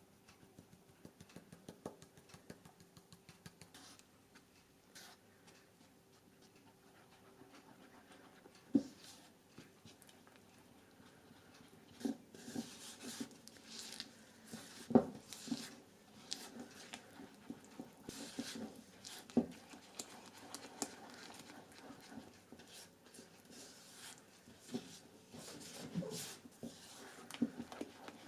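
Sounds of a pet cat close by, among scattered light knocks and rustling.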